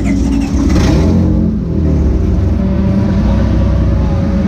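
Honda V6 engine of a mid-engine-swapped 1967 Ford Mustang race car running, heard from inside the cabin. The revs rise briefly within the first second, then settle into a steady idle.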